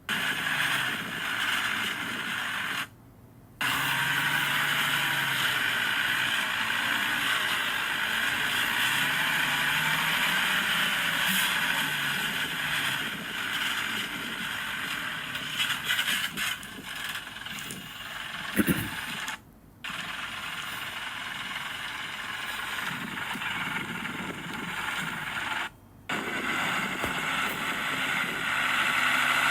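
Heavy diesel earthmoving machinery running and working, with a wavering engine note under steady mechanical clatter and a few short knocks. The sound breaks off abruptly three times between clips.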